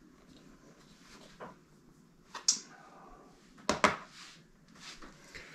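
A few scattered clicks and knocks of plastic measuring spoons and a small spice tin being handled and set down on a countertop. The loudest is a pair of knocks close together about two-thirds of the way in.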